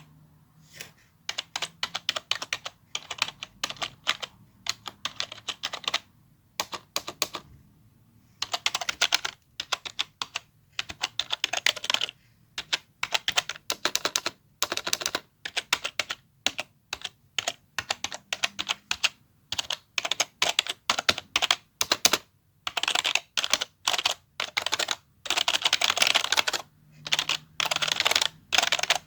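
Fast typing on a keyboard: runs of rapid key clicks in bursts, with short pauses between them and a longer pause about eight seconds in.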